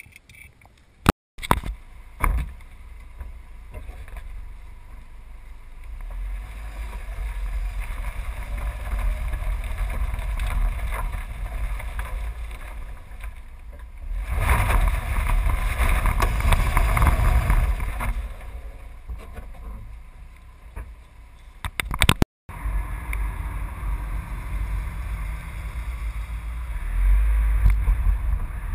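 Rumble of wind and road noise on a camera mounted outside a BMW car, swelling and fading several times, broken by two abrupt cuts.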